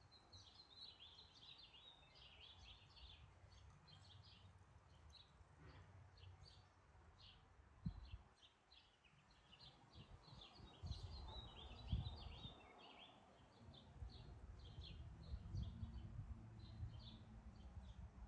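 Faint, rapid high chirping and twittering of small birds throughout, over a low rumble, with a short dull thump about eight seconds in and another about twelve seconds in.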